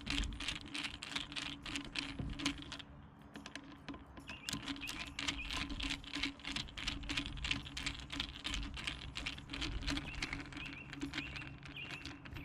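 Quick, irregular small clicks and rattles of plastic and metal parts being handled and fitted as the carburetor assembly of an edger is put back in place, with a faint steady hum underneath.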